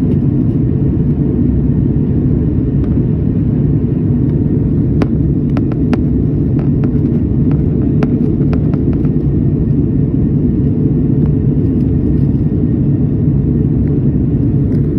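Steady airliner cabin noise from a window seat: a deep, even rumble of the jet engines and airflow. A few light clicks are heard between about five and nine seconds in.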